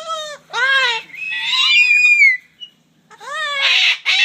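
Talking parrots calling in a string of high, pitch-bending squawks and whistle-like cries, without clear words. The longest and harshest screech is in the middle, and a noisier call comes near the end.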